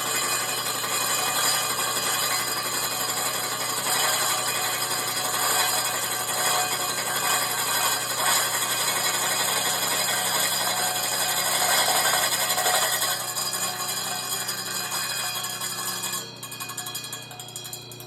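Slitting saw blade cutting through an aluminum intercooler, a continuous grinding, rasping cut over the steady hum of the machine. The cutting noise eases off and drops away about sixteen seconds in while the machine keeps running.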